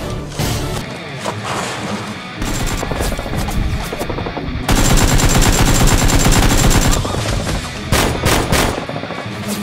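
Automatic gunfire sound effects: scattered shots, then a loud burst of rapid fire about halfway through lasting around two seconds, followed by a few single shots, over background music.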